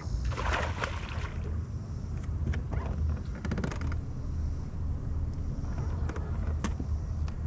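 Wind rumbling on the microphone on an open boat deck on a lake. A noisy rush comes about half a second in, and a quick run of small clicks around three and a half seconds in, with a couple of single clicks near the end.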